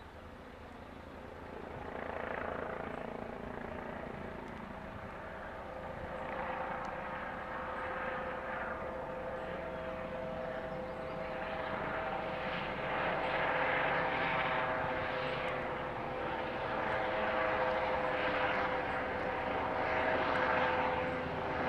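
Helicopter flying overhead, getting steadily louder as it comes closer, with a steady whine under the rotor noise.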